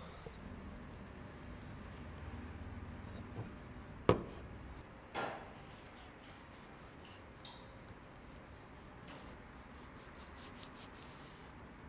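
A knife slicing raw chicken breast on a wooden cutting board: faint rubbing and scraping strokes, with two sharper knocks about four and five seconds in.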